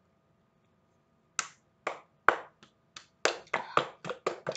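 A glass sauce bottle being shaken and knocked upside down to get thick sauce out: sharp knocks starting about a second and a half in, coming faster and closer together towards the end.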